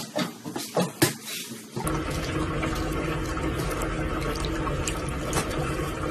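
A few sharp knocks and clacks as a cat pushes through a plastic pet door flap. About two seconds in, these give way to water running from a tap into a bathroom sink, a steady rush.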